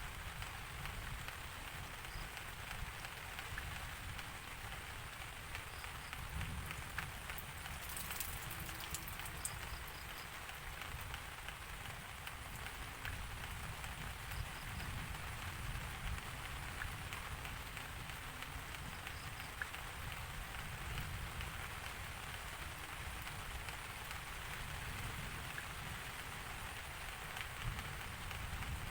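Steady rain falling, an even hiss with a low rumble underneath and a brief higher crackle about eight seconds in.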